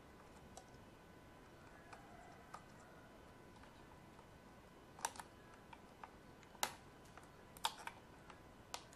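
Light, scattered clicks and taps of plastic parts being handled during the disassembly of a steam iron's plastic housing, over faint room tone; the clicks come sparsely at first and sharper and closer together in the second half.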